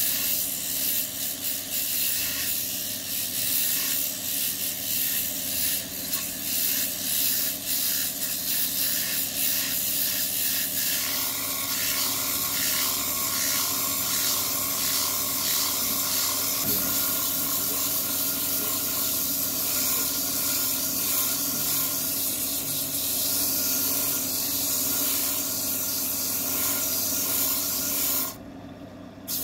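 Wood lathe running with a steady hum while the spinning wood is sanded, a continuous rubbing hiss. The hiss briefly drops away near the end.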